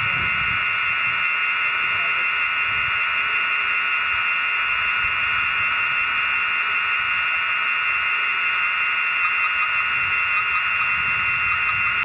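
A steady high whine of several held tones that stays at one pitch throughout, with gusty wind rumbling low on the microphone.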